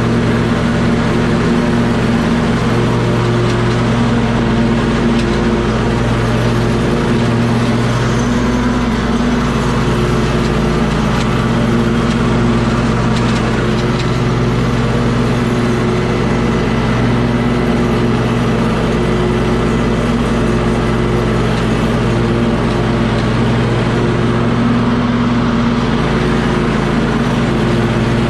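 An engine running steadily at an unchanging speed, a constant low hum with no revving.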